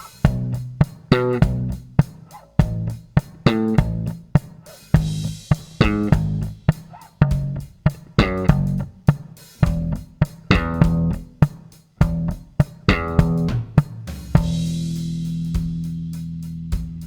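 Yamaha Motion B MB40 electric bass played as a plucked bass line over a drum beat, its tone being tried out after a new capacitor was fitted. About fourteen and a half seconds in it lands on a long held note with a cymbal crash and rings out.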